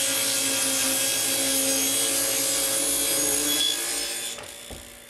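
Table saw ripping a wooden board lengthwise. The cutting noise holds steady, then fades away from about four seconds in as the cut ends.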